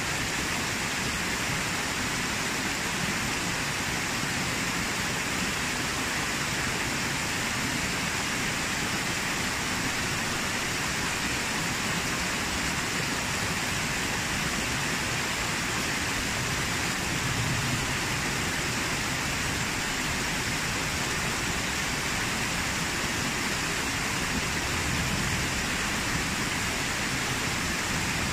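Small waterfall pouring over rock ledges and splashing down the cascade below: a steady, unbroken rush of water.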